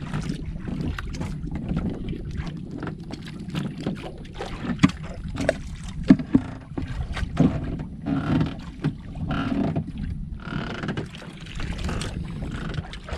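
Water and wind noise around a small wooden outrigger boat, with scattered knocks and clatter from handling fishing gear and the catch on board. A few sharper knocks stand out about five and six seconds in.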